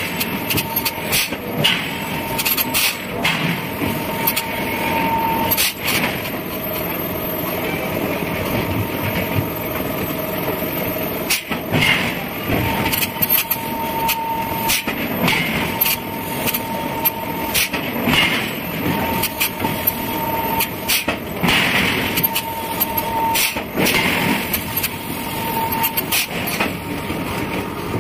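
Forge shop machinery running steadily, with irregular sharp strikes of metal on metal from heavy hammer forging.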